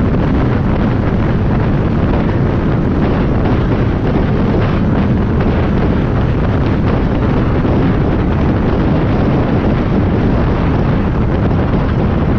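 UTV running steadily at speed on a dirt track, its engine drone mixed with heavy wind buffeting on the onboard camera's microphone, a loud, even rumble with no let-up.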